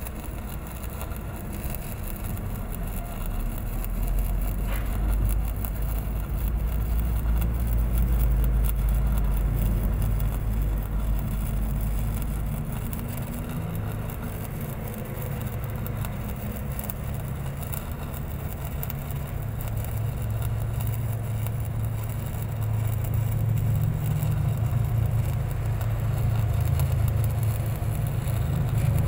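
Steady low engine rumble. About twelve seconds in, its pitch moves up and stays there. Over it is a faint, fine crackle from stick welding on a large steel pipe.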